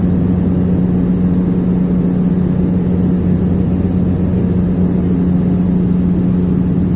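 Aircraft cabin noise in flight: the steady drone of the engines with a strong, constant low hum, heard from inside the passenger cabin.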